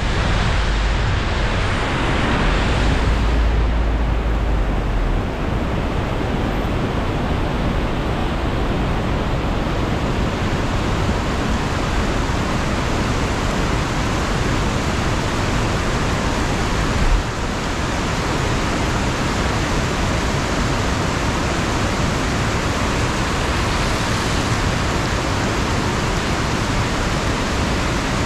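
Car driving in heavy rain: a steady rushing hiss of rain and wet-road tyre noise, with one short bump about two-thirds of the way through.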